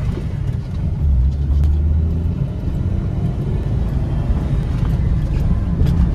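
Maruti Suzuki Ritz's 1.2-litre four-cylinder petrol engine pulling under hard acceleration from a launch with the AC switched off, heard from inside the cabin. It is a loud, steady low engine drone mixed with rising road noise.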